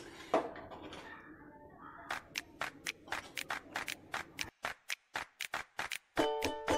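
A slotted metal ladle stirring and scraping cooked biryani rice in a large metal pot: a quick run of short scrapes, about four or five a second, from about two seconds in. Music comes in near the end.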